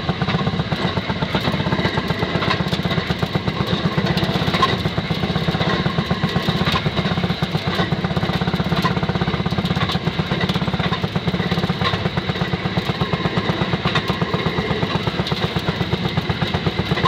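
Railroad speeder's small engine running steadily under way, with an even, rapid putt-putt beat of about five pulses a second.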